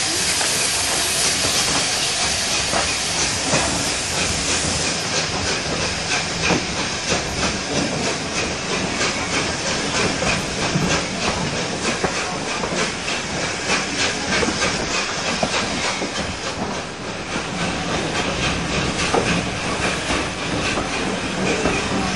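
Steam train on the move: a loud hiss of steam for the first few seconds that then eases, over a steady rumble with many short clicks of wheels on the rails.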